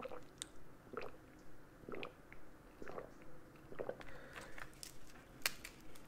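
Close-miked eating sounds: crab leg shells cracking and snapping as they are broken apart by hand, among soft chewing and mouth noises, with a sharp crack about five and a half seconds in.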